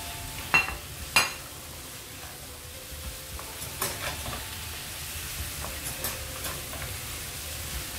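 Wooden spatula stirring chicken tikka pieces through thick masala in a nonstick frying pan, with a low sizzle under it. Two sharp knocks about half a second and a second in, then lighter taps and scrapes against the pan.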